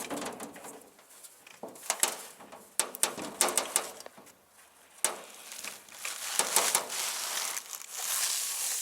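Scattered knocks, clicks and scraping from the car's underbody panel being handled and pulled out from under the car, with a longer scrape near the end.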